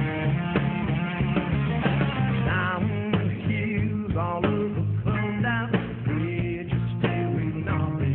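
Hard rock song recording: electric guitar and bass over a steady drum beat, with a male voice singing a melody.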